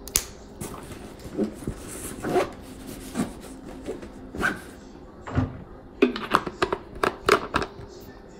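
Close-up ASMR-style handling of small plastic containers and a bottle right by the microphone: scattered taps and clicks, then a quick run of sharp clicks past the middle.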